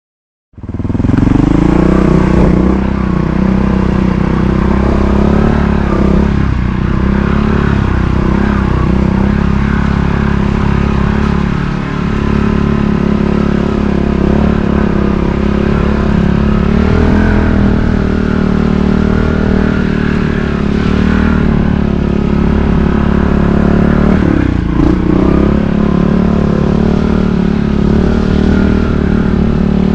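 Montesa Cota 4RT trials motorcycle's four-stroke single-cylinder engine running steadily while ridden, with a few brief rises in engine speed from small throttle openings.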